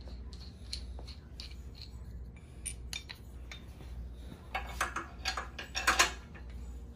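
Metal bike parts and hand tools being handled during exercise-bike assembly: scattered light clicks and clinks, with a quick run of sharper, louder metallic clinks about five seconds in.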